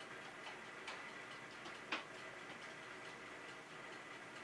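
Light metallic clicks and ticks of tongs and a wooden frame being set onto a toaster oven's wire rack, with one louder clink about two seconds in.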